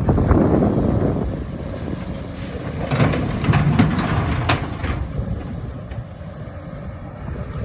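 Hydraulic excavator working in rock: the engine runs under load and surges twice, with a cluster of sharp knocks from the bucket on rock about three to four and a half seconds in.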